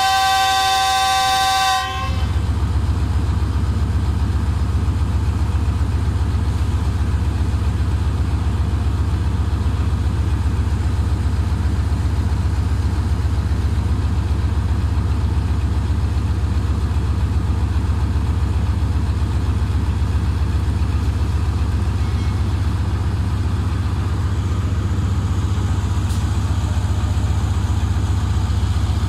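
Diesel-electric locomotive's air horn sounding a steady chord that cuts off about two seconds in, followed by the locomotive's diesel engine idling close by with a steady low rumble.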